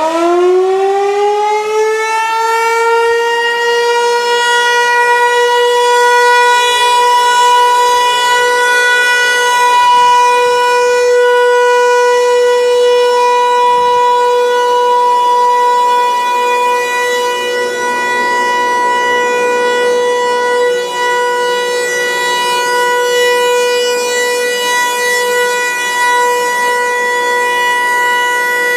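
Outdoor warning siren finishing its wind-up and levelling off within about two seconds, then holding a steady, loud wail at one pitch. This is the steady alert signal of a scheduled siren test.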